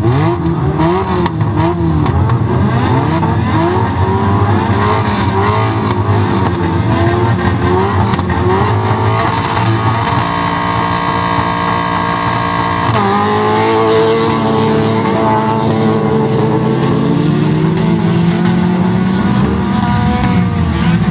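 Several wreck-race cars' engines running and revving together on the start grid, held at steady revs about ten seconds in, then rising in pitch as the cars accelerate away.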